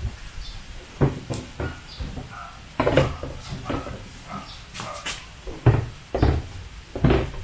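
A primer-patched car fender being set onto a welded steel stand and shifted into place: a run of about seven irregular knocks and clunks against the metal, the loudest about three seconds in and again near six seconds.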